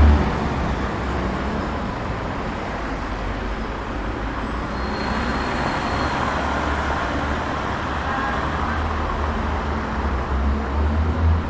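Street traffic on a wet road: a steady hiss of tyres with a vehicle's low engine rumble, heavier near the start and again near the end.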